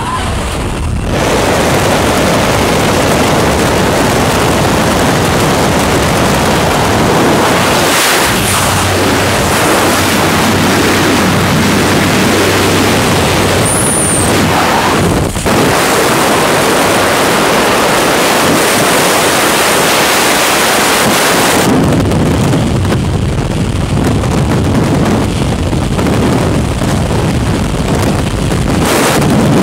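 Loud wind rushing over the camera's microphone in a skydive. It starts in the slipstream at the jump plane's open door, with a low steady drone beneath that stops about 22 seconds in. The sound then shifts to freefall wind.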